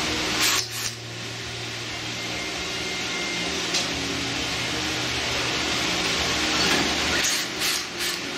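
Porter-Cable cordless drill/driver running steadily for several seconds, backing a screw out of a stainless steel grill panel, with a few short clicks and knocks near the start and again near the end.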